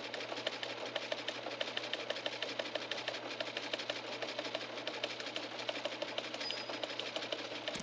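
A small machine clattering rapidly and evenly over a steady low hum.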